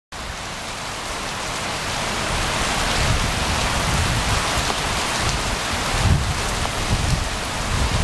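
Heavy typhoon rain pouring onto waterlogged pavement, a dense steady hiss that swells over the first few seconds. Low rumbles come and go underneath.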